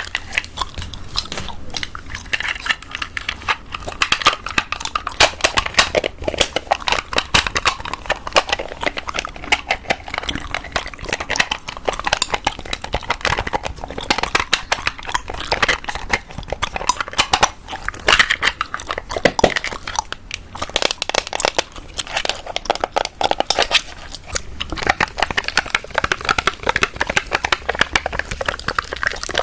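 Gum chewing close to the microphone: a dense, continuous stream of wet clicks and smacks, mixed with light tapping and handling of objects.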